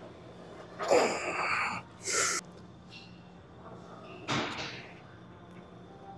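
A weightlifter's forceful breathing and strained grunting while pressing a Smith machine bar through hard reps: a longer strained grunt about a second in, a sharp hissing exhale just after it, and another hard exhale a little past four seconds.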